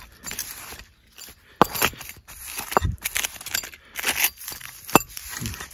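Gloved hands scraping and rubbing soil off a freshly dug glass bottle, with three sharp knocks among the scratchy handling noise.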